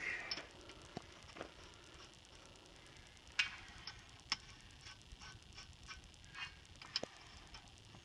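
Faint, scattered metallic clicks of lug nuts being turned by hand on the studs of a backhoe wheel.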